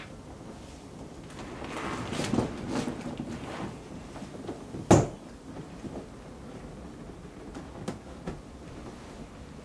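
Vinyl of an inflatable pool toy rustling and creaking as it is squeezed and rubbed, then one sharp, loud smack about five seconds in, followed by a few faint ticks.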